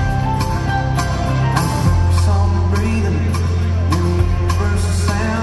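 Live band playing a song through an arena sound system, heard from the audience: a steady drumbeat, held bass notes that drop to a lower note about two seconds in, and guitars.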